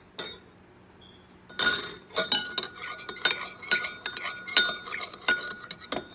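A metal spoon stirring a liquid dressing in a small ceramic bowl, clinking against the bowl's sides. After a brief scrape just before two seconds in, it settles into quick strikes, two or three a second, with the bowl ringing between them.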